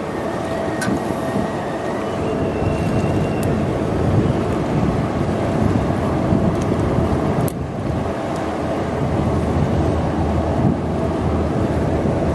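Steady low rumble with wind buffeting the microphone, with no ship's horn sounding.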